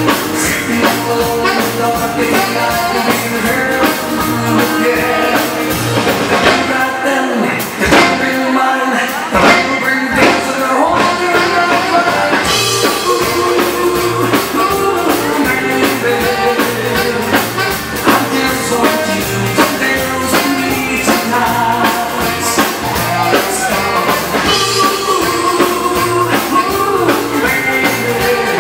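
Live Swedish dansband playing an up-tempo bugg (swing-dance) tune with a male lead singer, electric guitar, bass and drums, with a steady beat. The bass drops out briefly about seven seconds in, then the full band comes back.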